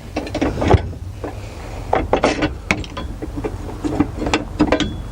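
Irregular metal knocks, clicks and clunks as a steering-column bracket is worked free from behind a car's dashboard. The loudest knock comes about three-quarters of a second in, and further clusters follow around two and four and a half seconds.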